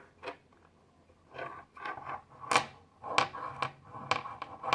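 Small magnetic fidget toys clicking and scraping on a tabletop as they are moved about by hand: a run of irregular sharp clicks, sparse at first and coming faster and louder in the second half.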